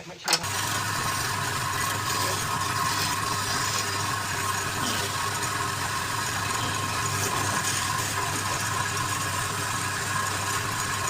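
A couple of clicks, then the electric motor of a woodturning lathe starts about half a second in and runs steadily with a low hum.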